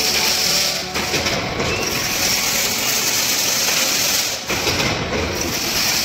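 Chain link fence weaving machine running: a steady mechanical noise with a strong hiss-like upper band. It dips briefly twice.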